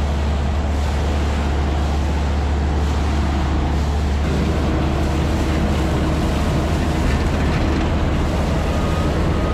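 TARCO trailer-mounted leaf vacuum running steadily, a deep low drone from its engine and fan under the rush of air as the intake hose sucks up curbside leaves.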